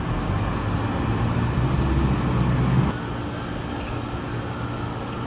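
A car passing on the street: its engine and tyre rumble builds for about three seconds, then drops off sharply, leaving a steady outdoor background rumble.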